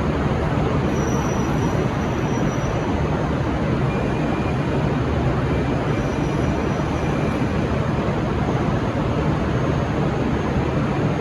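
V/Line VLocity diesel railcar set running, a steady diesel drone with wheel and rail rumble, holding an even level with no horn.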